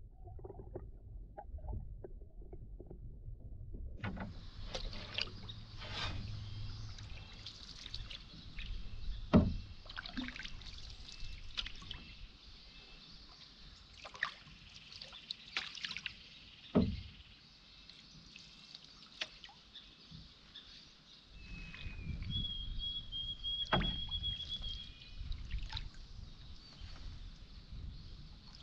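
Canoe paddling with a wooden paddle: water swishing and dripping, with a few sharp knocks of the paddle against the canoe. The first few seconds are muffled, heard from underwater, and a thin high whistle sounds for a couple of seconds near the end.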